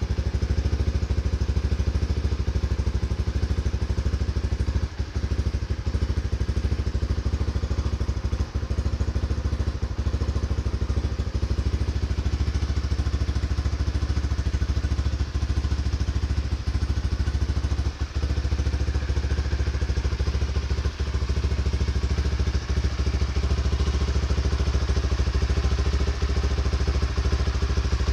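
Honda RS150 150cc fuel-injected single-cylinder motorcycle engine idling steadily, freshly started.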